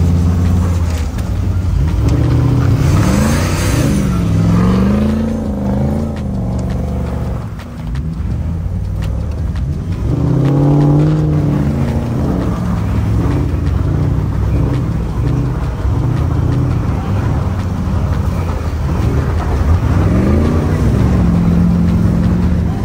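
Off-road Jeep engines running and revving. Their pitch rises and falls about three seconds in, again around ten seconds, and once more near the end.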